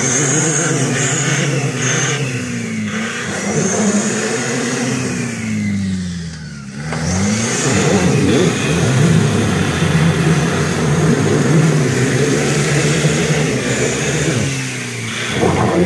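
Nissan Patrol Y61's ZD30 turbo-diesel engine revving up and down as its 38.5-inch tyres spin in an icy mud hole, then held at high revs from about seven seconds in, with mud and water churning and spraying off the spinning wheels.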